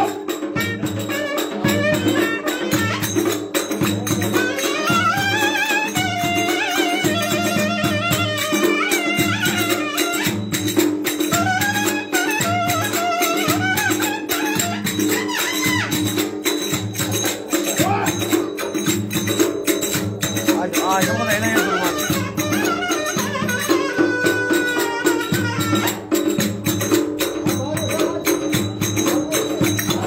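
Live Turkish folk dance music: a clarinet playing a winding, ornamented melody over the steady beat of a davul bass drum.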